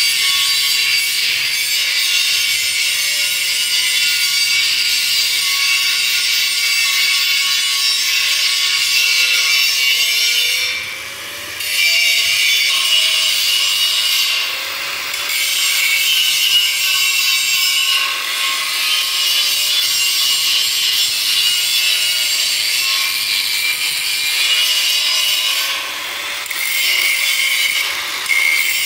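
Handheld angle grinder grinding the welded joints of a steel frame, the disc running hard against the metal. Its pitch dips and recovers several times as it is pressed in, and the grinding eases off briefly twice, about eleven seconds in and again near the end.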